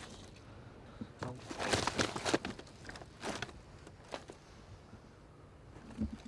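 Rustling and scuffing handling sounds, several clustered about two seconds in, then a few more scattered ones, over a faint steady low hum.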